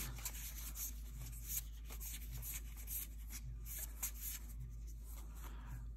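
Magic: The Gathering cards sliding against each other as a pack is flipped through one card at a time: faint soft rubs and flicks about every half second.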